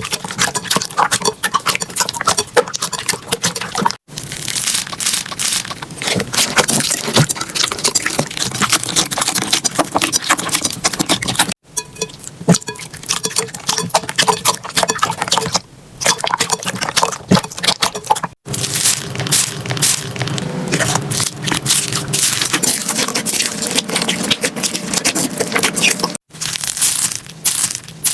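Slime being pressed, poked and stretched by hand: a dense run of crackles, pops and sticky clicks. The sound breaks off abruptly four times and starts again with a new batch.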